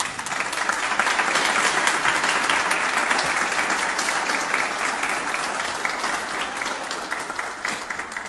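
Audience applauding, many hands clapping: it starts suddenly, builds within about a second, then slowly dies down near the end.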